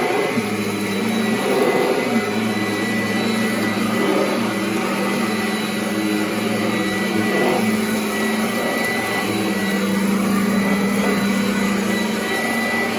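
Kirby Avalir upright vacuum cleaner running continuously while vacuuming carpet: a steady motor-and-fan whine whose low hum shifts slightly in pitch now and then.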